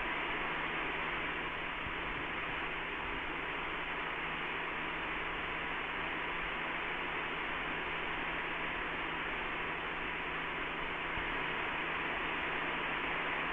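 Steady electronic hiss with a faint low hum and a thin steady high tone underneath, unchanging throughout.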